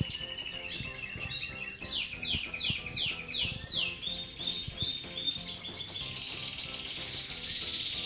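Canaries singing: long, rapid trills held on one pitch, with a run of about five quick falling notes around two seconds in, then a higher trill.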